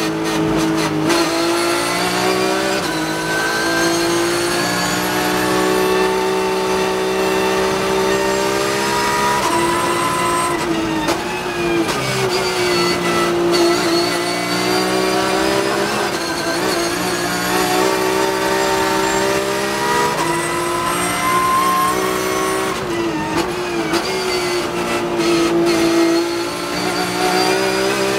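Porsche 991.2 GT3 Cup race car's 4.0-litre flat-six at high revs under hard acceleration, heard from inside the cockpit. Its pitch dips and climbs again right at the start, around ten seconds in and again a little before the end, as the car is driven through corners and gears.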